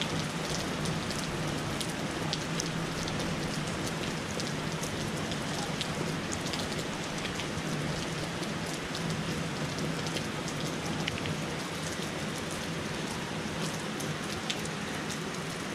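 Steady rain falling on trees and nearby surfaces, with frequent sharp ticks of individual drops striking.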